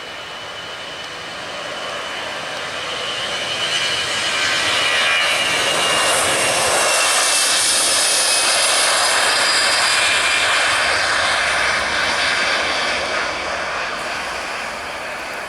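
Jet airliner passing close by: the engine rush and high whine build up over the first few seconds, peak about halfway through, and fade toward the end.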